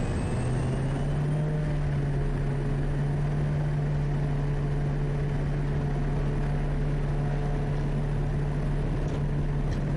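Quest Kodiak's Pratt & Whitney PT6A turboprop engine and propeller running at takeoff power as the aircraft begins its takeoff roll. A steady drone with two low, even tones, and a faint high turbine whine that rises slightly in the first second.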